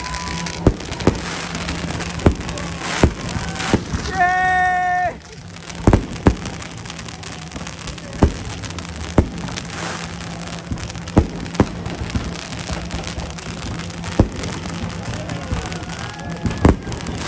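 Fireworks going off overhead: a dozen or so sharp bangs at irregular intervals over a crowd's background noise. About four seconds in, a loud horn sounds one held note for about a second.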